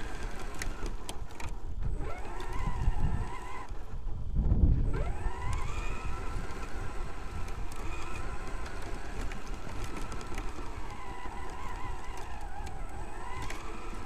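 Traxxas X-Maxx's brushless electric motor and drivetrain whining, the pitch rising and falling with the throttle, recorded onboard. The whine drops away about four seconds in and climbs again as the truck accelerates, over low rumbling from the chassis on rough ground.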